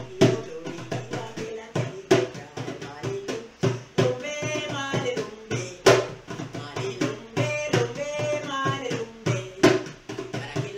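Djembe-style goblet hand drum beaten with bare hands in a steady rhythm. A woman's voice sings over it in two short phrases, about four seconds in and again near eight seconds.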